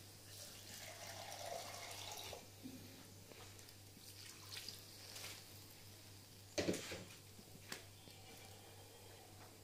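Water poured from a plastic cup into a wok of simmering pork and shallots, with faint splashing and dripping. A single sharp knock about two-thirds of the way in.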